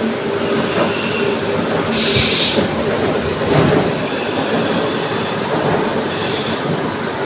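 Niigata milling machine running, a steady mechanical clatter from its drive, with a brief hiss about two seconds in.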